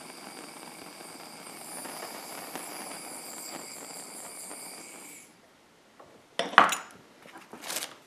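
Hand-held propane torch burning with a steady hiss as it heats the shrink tube on a battery-cable lug. The hiss cuts off suddenly about five seconds in as the torch is shut off. Two short metallic clatters follow as the cable and tools are handled on the bench.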